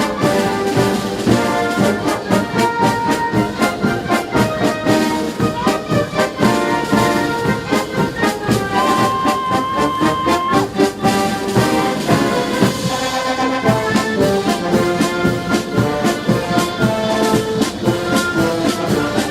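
Brass band playing with trombones and trumpets over a steady percussion beat, with one held high note about halfway through.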